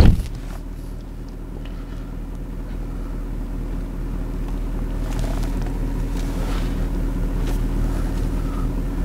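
A car door shuts with a thump right at the start, then the 2.3-tonne SUV's engine idles steadily, slowly growing a little louder.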